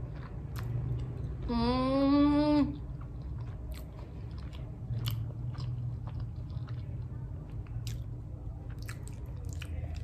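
A person chewing a mouthful of paneer roll, with soft clicks of chewing throughout. About a second and a half in comes a hummed 'mmm' of enjoyment lasting about a second, rising slightly in pitch; it is the loudest sound.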